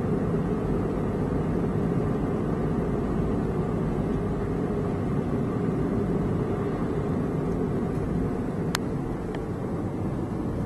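Steady road and engine noise inside a moving car's cabin. A sharp click comes near the end, followed by a fainter one.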